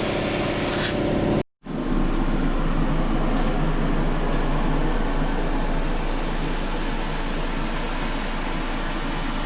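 Steady mechanical whir and hiss of a running fan or blower-type machine, with a low hum underneath. The sound drops out completely for a moment about one and a half seconds in, then the whir carries on with a slightly different tone.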